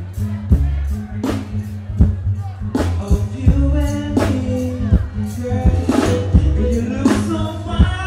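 Live music through a stage PA: a backing track with a steady drum beat and heavy bass, with a male performer singing over it into a microphone.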